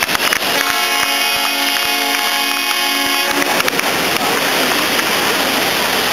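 A few claps at the start, then a steady horn blast held for about three seconds, then the hiss of surf breaking against the rocks.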